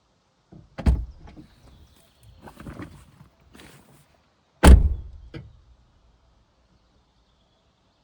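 Two heavy thuds, one about a second in and a louder one nearly four seconds later, each with a short ringing tail. Between them are softer rustling and scraping sounds, and a smaller knock follows the second thud.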